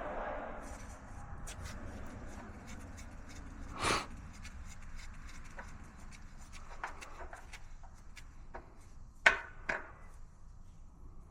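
A drain tray is handled and set in place: scattered knocks and rubbing, the loudest about four seconds in and two more close together near the end, over a faint hiss that fades in the first few seconds.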